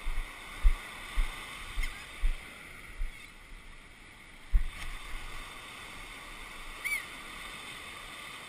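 Steady surf and wind noise on a body-worn camera's microphone at the waterline, broken by a series of low thumps on the microphone in the first five seconds and a brief high cry about seven seconds in.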